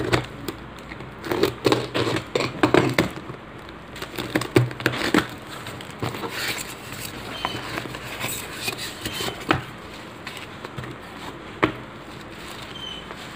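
A cardboard parcel being cut open with a box cutter and unpacked: packing tape and cardboard crackle and rustle, with scattered sharp clicks and knocks against the table. The handling is busiest in the first few seconds, then turns to sparser rustling of foam wrapping.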